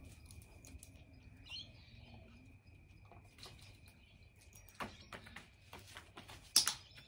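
Quiet outdoor ambience: birds chirping and a steady thin high whine, with scattered sharp clicks and taps of a dog's claws on brick pavers as it moves around, the sharpest near the end.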